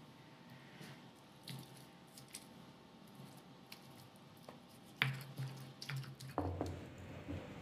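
Stone pestle crushing tomatoes into chili sambal in a stone mortar (cobek and ulekan): wet squishing with soft knocks of the pestle. The knocks get louder and more frequent about five seconds in.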